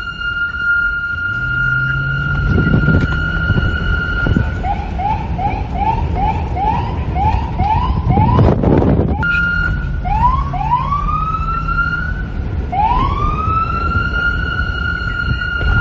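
Police car's electronic siren: a held high tone, then a rapid yelp of about two rising whoops a second, a brief loud noisy blast about eight seconds in, then slower rising wails that climb back into the held tone. Wind noise runs underneath.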